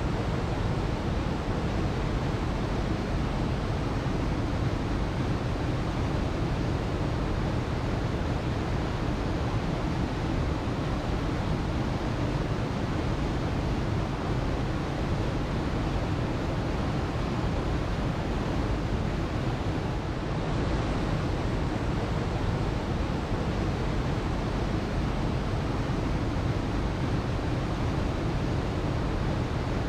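Waterfall: water pouring and splashing in a steady, even rush, heaviest in the low end.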